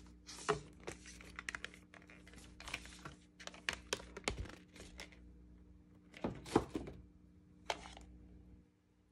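Paper and cardboard packaging of an Apple Magic Keyboard box being handled: a paper booklet and a cardboard protective sheet rustling and scraping, with soft taps and thuds. The loudest handling comes about six and a half seconds in, with one more tap near the end.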